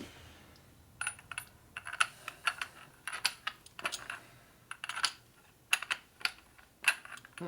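Light metallic clicks and clinks at irregular intervals, a dozen or more, starting about a second in: small metal parts being handled and tapped together during motorcycle front-fork work.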